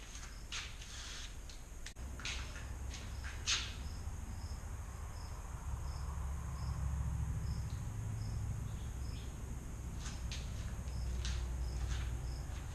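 A cricket chirping in a steady, even rhythm, with scattered rustles and clicks of packaging being handled and a low hum underneath.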